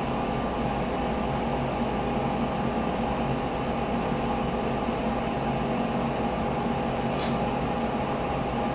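Steady mechanical hum of a household appliance running, made up of several fixed pitches at an even level. A few faint clicks come through near the middle and again a little later.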